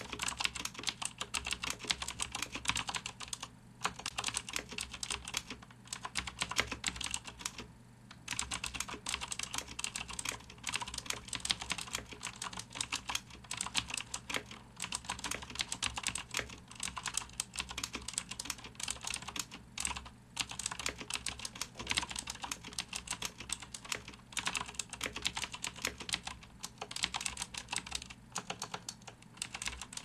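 Touch-typing at about 50 words per minute on a Das Keyboard III Ultimate with clicky Cherry MX Blue switches, plate-mounted, with thin ABS blank keycaps: a dense, fast stream of key clicks broken by a few brief pauses.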